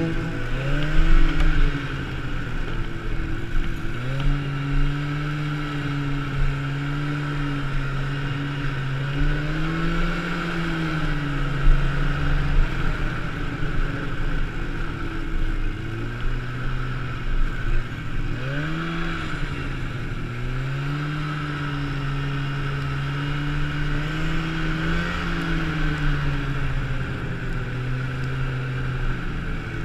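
Yamaha snowmobile engine running under way, its pitch rising and falling several times as the throttle is opened and eased off, over a steady higher hiss.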